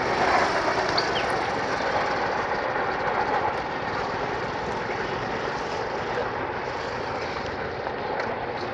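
Diesel-hauled express train running away along the track, a steady rumble of wheels on rail and engine that slowly fades as it recedes.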